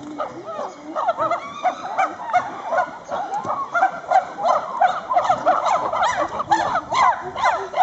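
A group of chimpanzees calling together: many short, overlapping hooting and screaming calls that grow denser and louder from about a second in.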